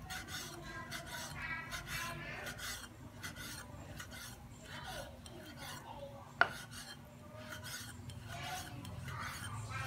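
Cleaver slicing raw beef on a wooden chopping block: a steady run of soft knocks and scrapes as the blade cuts through the meat onto the wood. One sharper click comes about six and a half seconds in.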